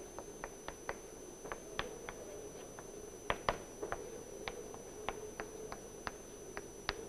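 Chalk writing on a blackboard: a run of short, irregular taps and clicks, a few each second, as the chalk strikes and lifts off the board.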